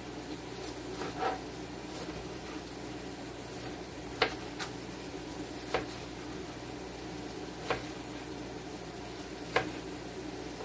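Kitchen knife slicing through partly frozen raw chicken breast, knocking on a plastic cutting board about six times, one to two seconds apart. A steady low hiss runs underneath.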